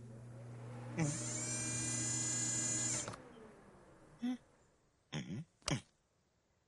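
A steady electric buzz that grows louder and cuts off suddenly about three seconds in, with a few short grunts from a cartoon bear's voice.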